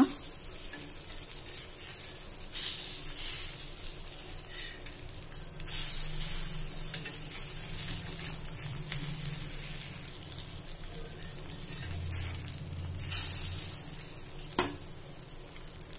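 Egg-and-onion omelettes frying in oil on a cast-iron dosa tawa: a steady sizzle with several louder spells of sizzling and scraping as they are turned over with a plastic spatula, and one sharp click near the end.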